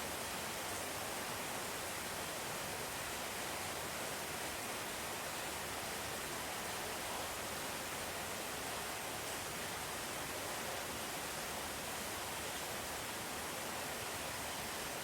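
Steady rain heard from indoors: an even hiss with no thunder strikes.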